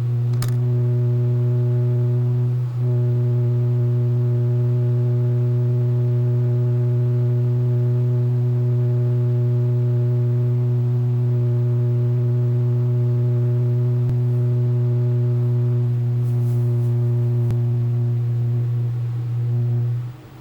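A loud, steady low-pitched hum with a stack of overtones, dipping briefly about three seconds in and stopping near the end.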